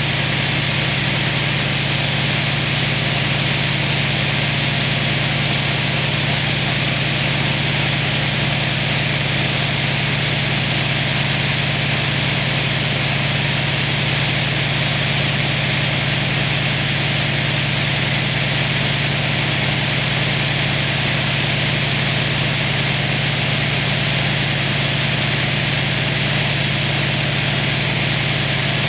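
CP Class 1900 diesel-electric locomotive's engine idling steadily with the locomotive at a standstill, run up for testing after heavy maintenance. A thin, steady high whine sits over the low engine drone.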